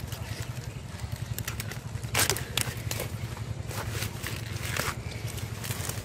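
Water hyacinth leaves and stems rustling and crackling, with small splashes, as hands grope through the plants and shallow water, with a cluster of sharp crackles a little after two seconds. A steady low hum runs underneath.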